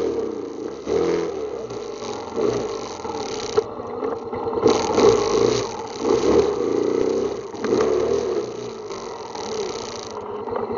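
ATV engine running under changing throttle, its revs rising and falling again and again, with a single sharp knock about three and a half seconds in.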